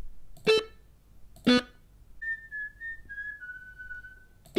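Two short electric-guitar notes sounded by a browser sequencer as notes are clicked into its grid, about a second apart. Then a person whistles a short tune of a few notes that steps downward.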